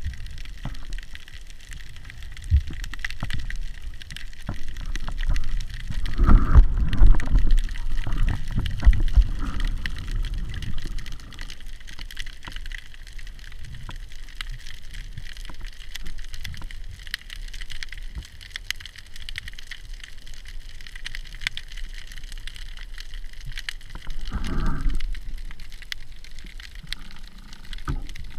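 Underwater ambience picked up by an action camera in its housing: a constant fine crackling of clicks over a hiss, with low muffled water rumbles that swell from about six to eleven seconds in and again about twenty-four seconds in.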